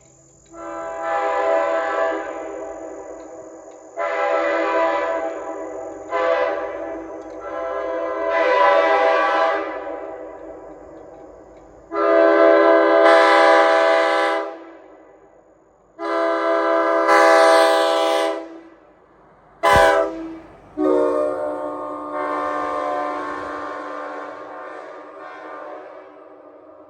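Nathan Airchime K5L five-chime locomotive air horn blown in about seven blasts of one to five seconds, one of them very short, each a steady multi-note chord that starts abruptly. After each cutoff the chord fades slowly, echoing.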